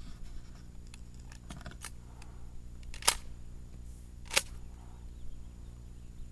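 A few short, sharp mechanical clicks, the loudest about three seconds in and another about a second later, over a faint steady hum: a 12-gauge shotgun being handled and readied to fire a slug.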